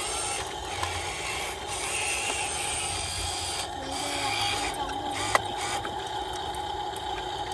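Radio-controlled toy dump trucks' small electric motors and plastic gearboxes whirring and grinding steadily as they drive over mud, with one sharp click about five and a half seconds in.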